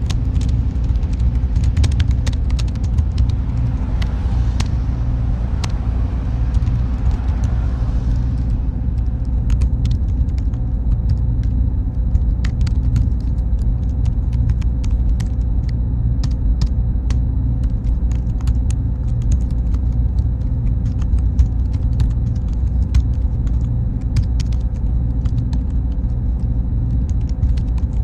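Server room ambience: a steady low rumble with a faint high-pitched tone and scattered light clicks. A brighter hiss fades out about eight seconds in.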